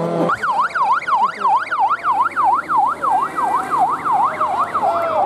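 Electronic siren on a white van sounding a fast yelp, its pitch sweeping up and down about three times a second.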